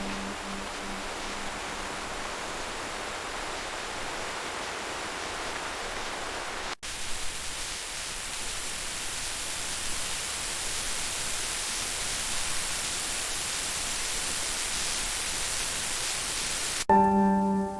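Steady rain hiss with no distinct drops, cut off briefly about seven seconds in and brighter after that. Near the end a ringing bell-like tone starts.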